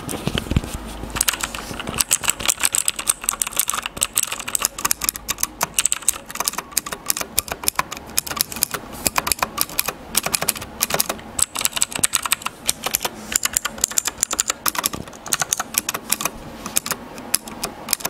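Typing on a Zebronics Max Pro mechanical keyboard with Outemu blue clicky switches: fast, continuous clicking of keystrokes, starting about a second in.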